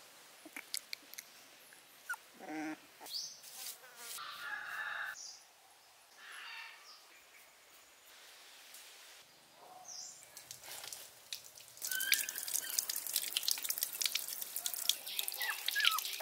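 A run of short outdoor clips with scattered chirps and calls, then from about twelve seconds in a louder crackle of running, splashing water with puppies whimpering over it.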